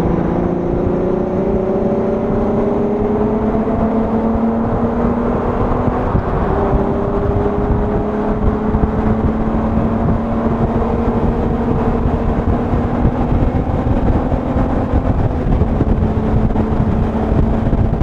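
A Volkswagen 12-valve VR6 engine and exhaust, heard from inside the car as it cruises in gear. The engine note climbs slowly and steadily as the car gathers speed, over a constant low road and wind rumble.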